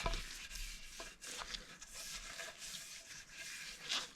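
Faint rubbing of a rag spreading oil over a hardwood cutting board, with a few light knocks.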